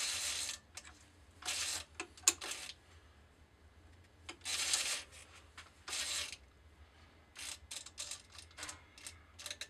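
Four-jaw lathe chuck being snugged with its chuck key and turned by hand, the jaws gripping a brass workpiece. There are short rasping bursts of about half a second each and one sharp metallic click about two seconds in, the loudest sound. A run of quick light clicks follows near the end.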